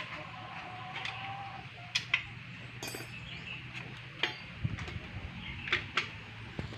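Scattered metallic clinks and ticks of hand tools working on a Honda CRF150 motorcycle engine, with one brighter ringing clink about three seconds in.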